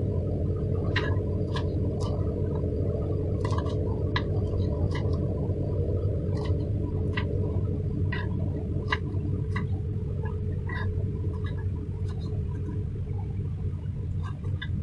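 A small knife clicking against a wooden chopping board as green chillies are cut into pieces, in short irregular taps about once a second, over a steady low hum.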